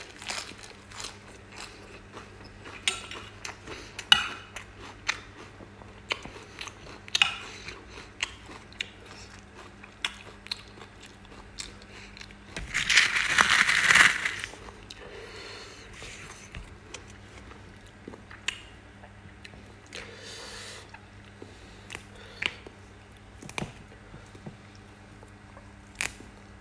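Close-up chewing of a crisp lettuce leaf wrapped around raw oysters: wet crunches and sharp mouth clicks, scattered and uneven. About halfway through, a louder, noisier rustle lasting about a second and a half.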